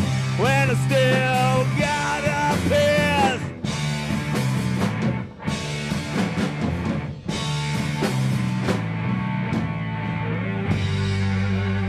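Live rock band of electric guitar, electric bass and drum kit playing loud, with three brief stops where the sound drops out. Near the end the cymbals fade and a held, ringing chord sustains.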